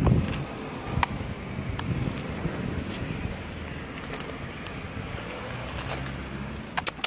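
Low steady outdoor rumble along a road, with a louder burst of handling and wind noise on the phone microphone at the start and a few sharp clicks near the end.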